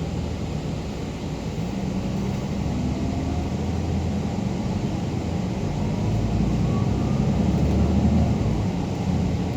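Low rumble of a passing vehicle over outdoor background noise, growing louder to a peak about eight seconds in, then easing.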